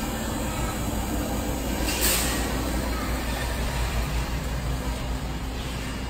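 Large-store ambience: a steady low rumble and background noise, with a short hiss about two seconds in.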